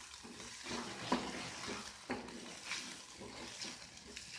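Sliced onions with turmeric and salt sizzling softly in coconut oil in a pan, while a utensil stirs and scrapes them around the pan every second or so.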